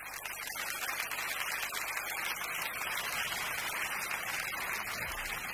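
Audience applauding, a steady even clatter of many hands.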